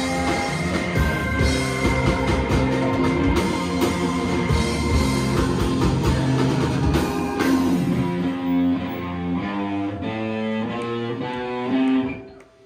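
Live rock-and-roll band playing: electric guitars, drum kit and saxophones. About eight seconds in the full band thins to a run of stepped notes, and the music cuts off near the end.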